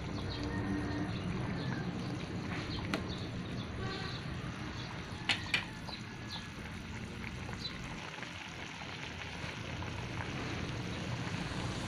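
Chicken adobo with potatoes boiling in a metal pot, a steady bubbling of the simmering sauce. A few sharp clicks stand out, two close together about halfway through.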